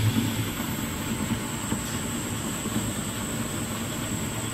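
Noodle-making line machinery, the dough mixer and lift conveyor belt, running steadily with a low hum.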